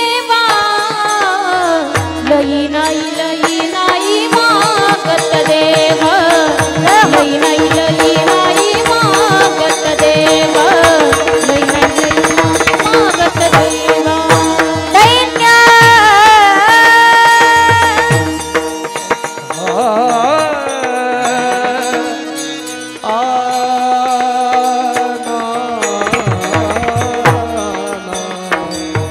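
Warkari devotional singing in raag Bhairavi: a singer sings long ornamented phrases over a steady drone, with hand-drum strokes keeping time. About halfway through there is a long, high held note.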